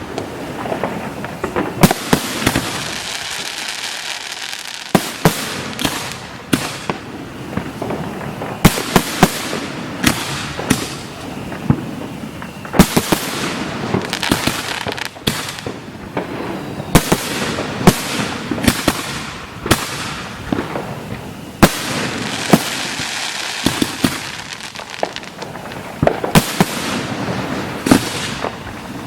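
Fireworks display: many sharp bangs from shells firing and bursting in quick succession, over continuous crackling.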